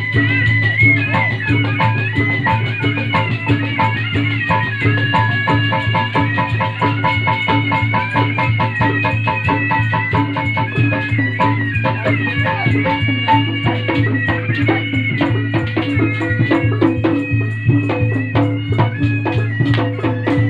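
Lively percussion-led music: fast, dense drum strokes under a high, wandering melody line, with a rapidly repeated note in the middle of the range.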